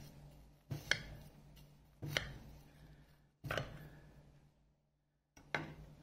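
Metal knife cutting down through a crumb-topped blueberry buckle and knocking against the bottom of a glass baking dish, four sharp knocks about a second and a half apart.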